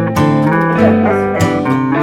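Background music: an instrumental guitar passage of a pop song, with strummed chords and no singing.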